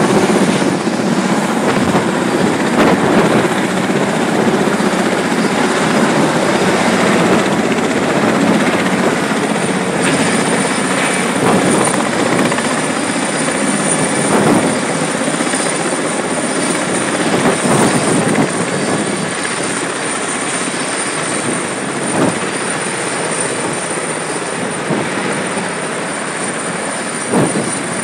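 Helicopter working a long-line lift: steady, loud rotor and engine noise with a thin high whine above it, easing slightly in the second half.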